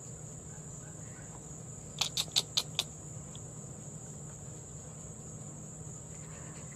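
Steady high-pitched insect chorus, with a quick run of five short clicks about two seconds in.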